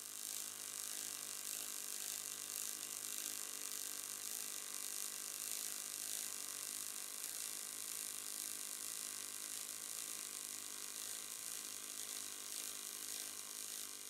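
Pulsed AC MIG welding arc on aluminium from an EWM Titan XQ 400 AC puls power source: a steady hiss over a hum of many steady tones. It fades away near the end.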